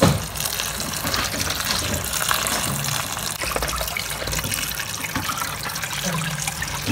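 Tap water running steadily onto a heap of falsa (phalsa) berries in a plastic colander, rinsing them.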